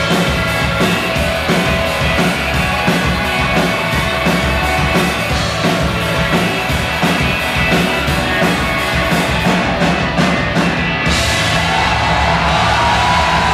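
Live rock band playing loud with drums and electric guitars. About eleven seconds in, the drum hits stop and a sustained guitar chord rings on.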